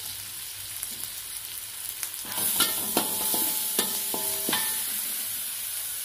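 Spice paste with bay leaves and green chilies sizzling in hot oil in an aluminium wok. From about two seconds in, a metal spatula scrapes and clinks against the wok several times as the paste is stir-fried, and each clink rings briefly.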